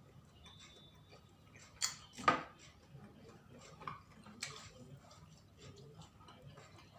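A few light clinks and taps of tableware over quiet room tone, the loudest two close together about two seconds in.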